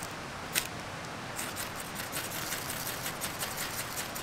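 Campfire crackling: one sharp pop about half a second in, then a run of irregular snaps and crackles from about a second and a half on, over a steady hiss.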